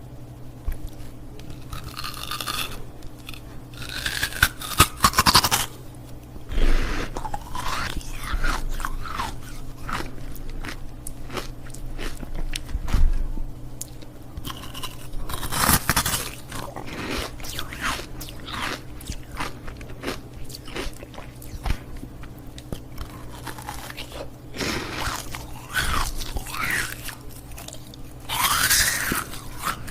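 Ice cubes being bitten and chewed close to the microphone: repeated sharp crunches as the ice cracks between the teeth, with scraping, squeaky grinding in between.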